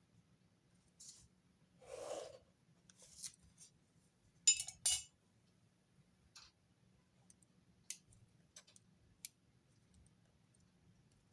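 Quiet desk sounds of handwritten note-taking: light pen and paper ticks, a soft paper rustle about two seconds in, and two sharp clicks with a slight metallic ring about halfway through.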